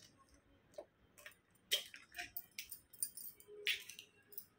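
A raw egg being broken open by hand over a plastic bowl: a string of small, irregular clicks and taps as the shell is pulled apart and the egg drops in, with light clinks of glass bangles on the wrist.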